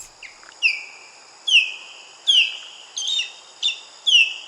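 Osprey calling: a series of about six short, high whistled notes, each sliding down in pitch.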